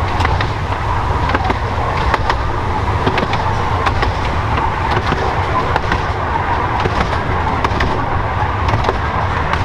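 Miniature railway coach running along the track: a steady rolling rumble broken by many sharp, irregular clicks of the wheels over the rail joints.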